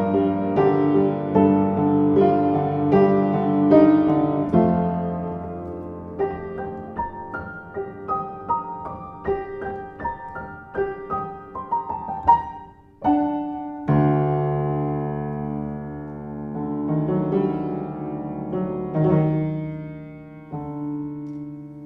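Solo piano music: chords at first, then a run of single notes, then held chords that fade toward the end.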